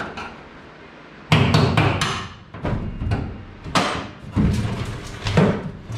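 Half a dozen irregular, ringing bangs on the aluminum bench seat of a jon boat as it is hammered and knocked loose from its cut rivets, the first about a second in.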